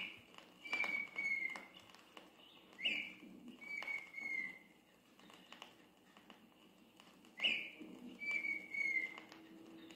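Red-winged tinamou (perdiz) whistling: three calls a few seconds apart, each a short sharp note followed by a longer, slightly falling whistle.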